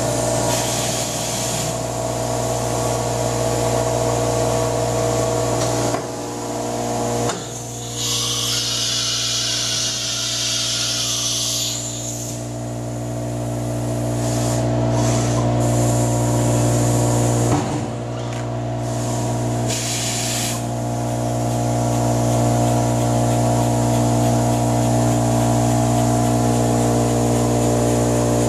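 Five-axis CNC router running, a steady machine hum with several held tones. About eight seconds in comes a loud hiss of compressed air lasting about four seconds, with a shorter hiss about twenty seconds in and a sharp clunk or two, as the spindle changes tools at its rack-style tool changer.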